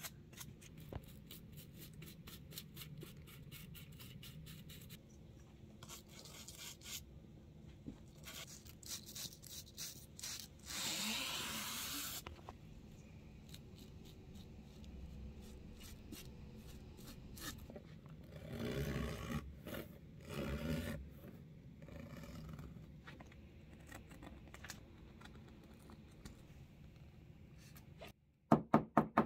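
Small wire brush scrubbing back and forth over nylon lining fabric and zipper tape in quick, fine strokes, with louder stretches of scrubbing about a third of the way in and again about two-thirds in. Near the end a hammer starts tapping sharply on the fabric against the wooden bench.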